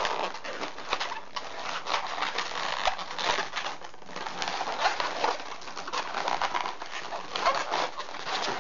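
Latex modelling balloons squeaking and rubbing against each other as they are squeezed and twisted by hand. A continuous run of short squeaks and scrapes as air is pressed out of the small white eye bubbles so that they stay underinflated.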